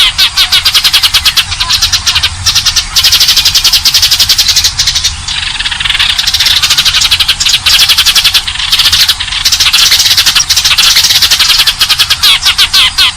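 Eurasian tree sparrows chirping in a loud, unbroken run of rapid, closely spaced chirps. This is the excited chatter of sparrows squabbling, the call used to lure sparrows.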